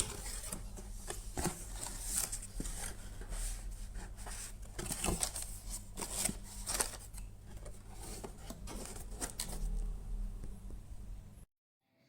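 Braun Series 5 electric foil shaver running with a steady hum while crackling irregularly as it cuts stubble; the sound cuts off abruptly near the end.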